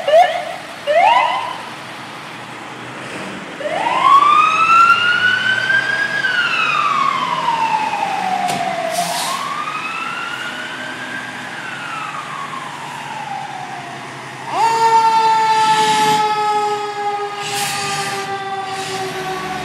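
Fire apparatus sirens responding to a call: two short chirps, then a wail siren rising and falling twice. About fourteen seconds in, a second, steadier siren tone cuts in loudly and slowly sinks in pitch.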